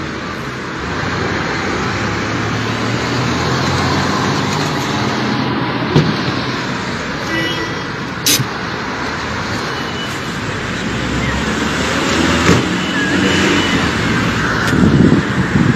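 Steady city street traffic noise: car engines and tyres on the road, with a couple of short sharp knocks partway through.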